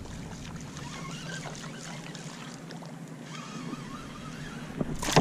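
Quiet open-air ambience in a small rowboat: faint steady wind and water noise, broken about five seconds in by a sudden loud noisy burst.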